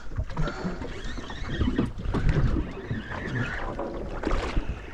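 Noise aboard a small fishing boat on the water: water and wind against the boat and microphone, with knocks and movement on deck.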